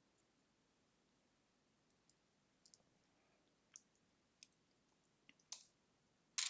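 Small plastic LEGO pieces clicking as they are handled during disassembly: a few scattered, sharp clicks starting about two seconds in, growing louder, with the loudest near the end.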